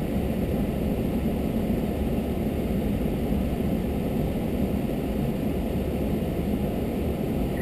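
Steady low rumble of an idling vehicle engine, unchanging throughout.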